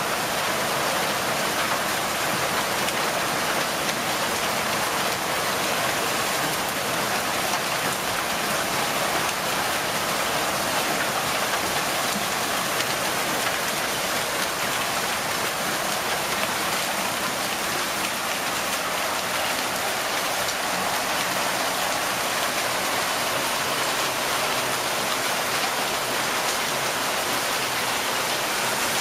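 Heavy hail mixed with rain pelting paving, a path and garden plants in a steady, dense patter.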